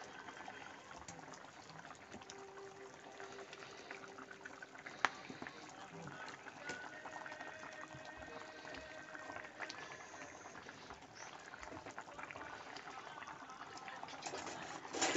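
Fish curry simmering in a steel pot on the stove: a faint, steady bubbling with scattered small pops, and one sharp click about five seconds in.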